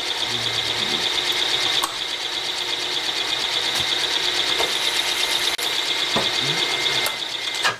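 Machine spindle running with a twist drill cutting into an aluminum part, a steady whirring grind fed down to a depth set off the quill dial; the sound cuts off suddenly near the end as the machine stops.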